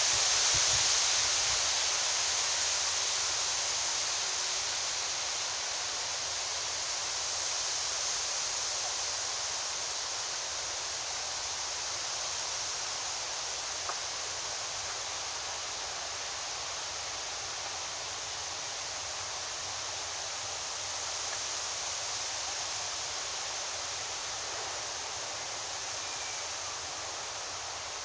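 Strong wind rushing through tree foliage: a steady hiss of rustling leaves that eases slightly over the first several seconds, then holds.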